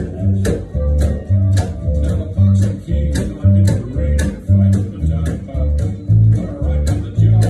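Acoustic upright bass plucked in a steady two-beat country bass line, low notes alternating about twice a second, with guitar and sharp clicks on the beat above it.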